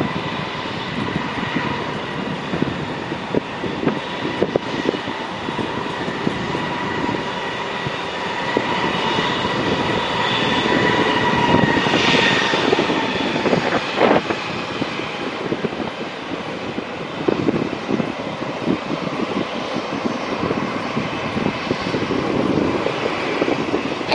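Airbus A320's jet engines running at low power as the airliner taxis: a steady whine with two tones that sag slightly in pitch around the middle, over a rough rumble.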